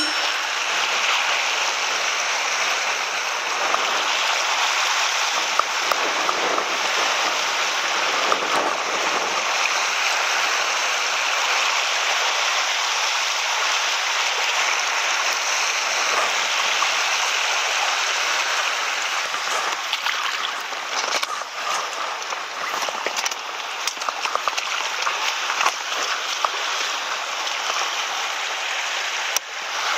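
Seawater washing and rushing over shoreline rocks, a steady noise with a few sharp clicks scattered through it.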